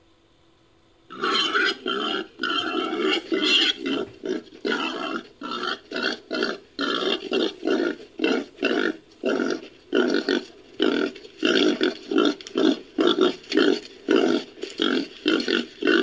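Babirusa sound effect made from babirusa and wild boar recordings: a long run of short, pig-like grunts, about two a second. It starts about a second in, and the grunts come shorter and quicker toward the end.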